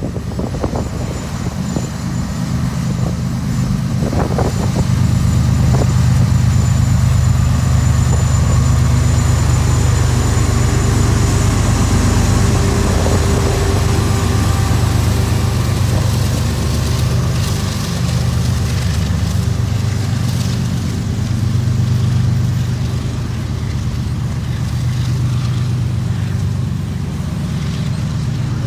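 CN freight train passing close: the diesel lead locomotive's engine running loudly as it draws up and goes by, followed by the rumble and wheel-on-rail noise of hopper cars rolling past. The engine sound swells over the first several seconds and then holds steady.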